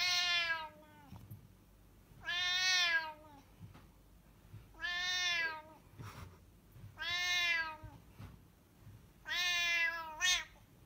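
A cat meowing: five long, drawn-out meows about two seconds apart, each falling in pitch at its end, with a short extra meow right after the last.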